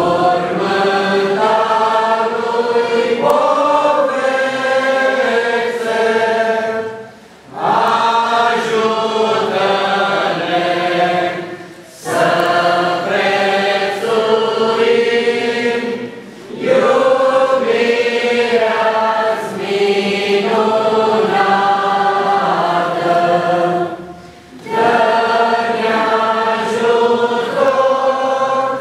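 Congregation of men and women singing a hymn together in long sustained phrases, with short breaks between lines every few seconds.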